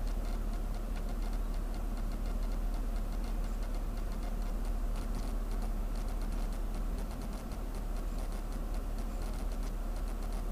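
A car's engine idling while the car stands still, heard from inside the cabin as a steady low hum, with a fast, regular light ticking over it.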